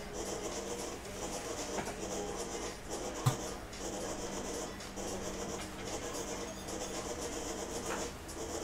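Electric deli slicer cutting, the food rasping and scratching against the spinning blade as the carriage is pushed back and forth, over a steady hum. A single sharp knock about three seconds in.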